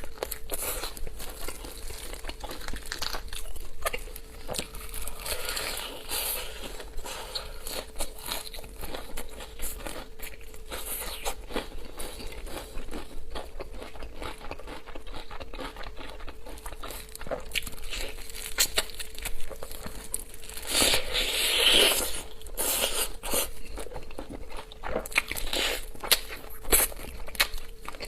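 Crispy fried chicken being handled and bitten, with irregular crunching and the crinkling of its paper or plastic packaging, louder for a moment about three-quarters of the way through, over a faint steady hum.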